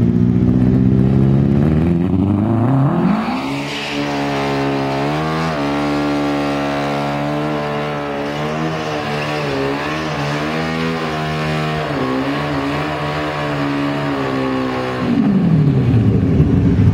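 Small hatchback's engine held at high revs during a burnout, its pitch wavering slightly, over the hiss of spinning, smoking tyres. The revs drop and climb back near the start, and dip again near the end before rising.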